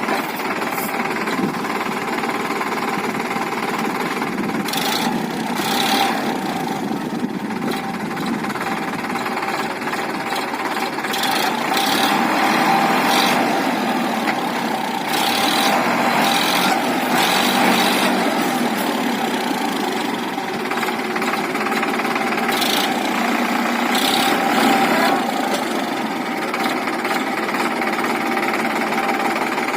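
Heavy diesel machinery engines running steadily at a work site, with short knocks and clatters now and then as a JCB loads mud into a tractor trolley.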